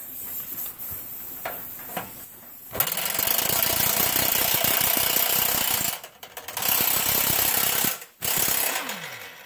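Impact wrench hammering on a stuck frame bolt to break it loose, in three bursts: a long one of about three seconds, a shorter one, then a brief one near the end.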